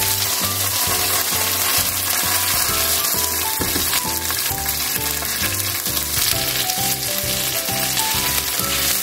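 Chicken thigh pieces sizzling in oil in a frying pan on low heat while the excess oil is blotted up with kitchen paper. Background music with a steady, bouncy beat plays throughout.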